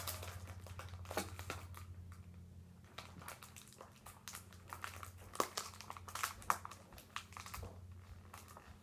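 Plastic packaging crinkling and crackling as a small wrapped item is unwrapped by hand. The crackles come in scattered handfuls and are sharpest about five to six and a half seconds in.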